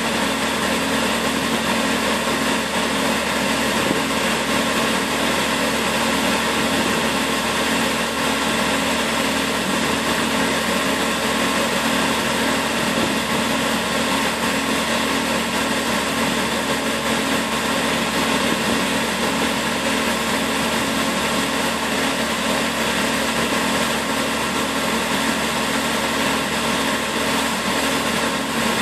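Claas combine harvester running steadily while unloading shelled maize through its unloading auger. A constant, even machine noise with a steady low hum that does not change.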